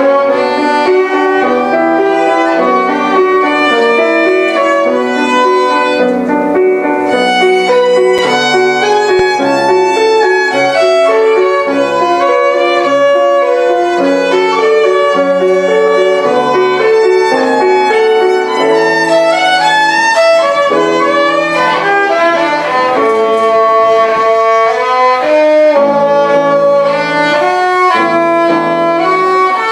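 Violin bowed in a continuous melodic passage, one note running into the next, held notes mixed with quicker runs.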